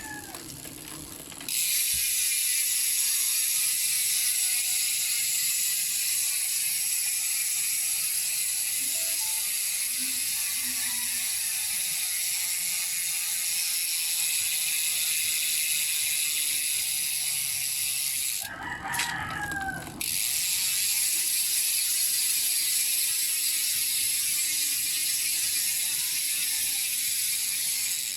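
Ratchet-type bicycle rear hub freewheeling, its pawls giving a loud, continuous rapid buzz as the wheel spins. The buzz stops briefly about two-thirds of the way through, when a rooster crows, and then starts again.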